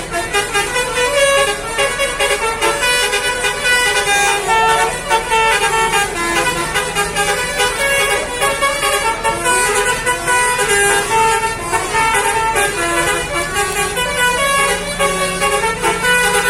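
Basuri 'telolet' musical bus horn playing a tune without a break, a quick run of stepping, multi-pitched horn notes.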